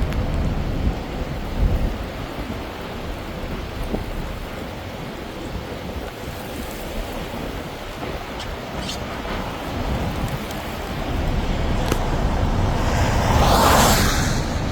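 Strong storm wind near a tornado: a steady low rumble, with a louder gust swelling near the end.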